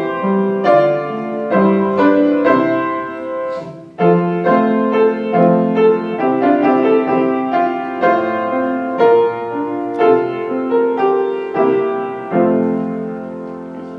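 Piano playing slow music in chords, each struck chord dying away. There is a brief break about four seconds in, and near the end it settles on a held final chord that fades out.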